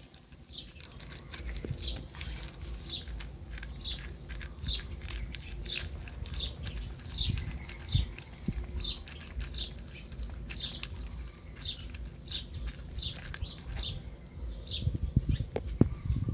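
A small bird chirping over and over, a short falling chirp about every three-quarters of a second, over a puppy licking and crunching frozen milk ice in a glass bowl. Louder knocks near the end.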